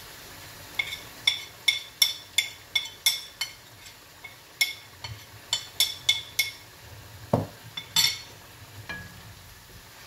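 A spoon clinking against a plate in quick, even taps, about three a second, knocking spices off it into the pan. A louder clink comes near the end. Chicken frying in oil sizzles faintly underneath.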